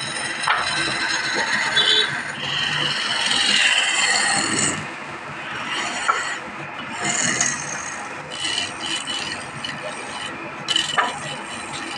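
Wood-lathe turning: a hand-held chisel scraping along a spinning wooden spindle, a continuous rasping cut that swells and eases as the tool moves, loudest in the first half.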